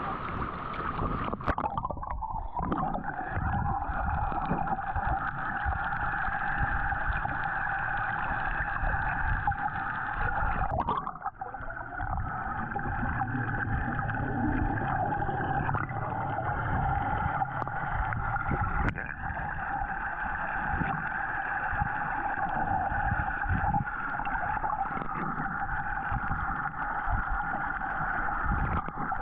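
A boat's motor droning steadily over a rumble of water noise, with two abrupt breaks about 2 and 11 seconds in.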